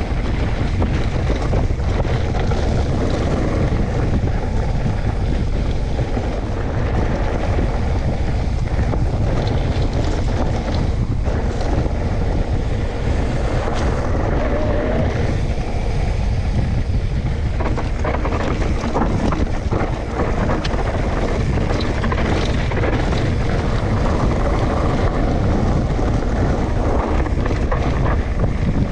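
Wind buffeting the microphone: a steady, loud low rumble that runs without a break.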